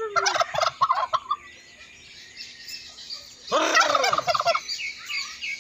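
Domestic turkeys gobbling: a rapid rattling gobble in the first second or so, then a second loud gobble about three and a half seconds in, with fainter chirps between.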